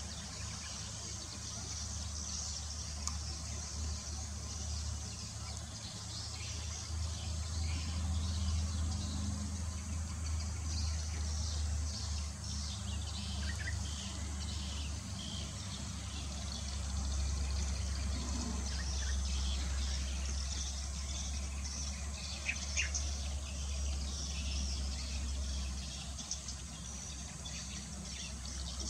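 A steady low rumble under a high insect-like hiss, with a few short bird chirps.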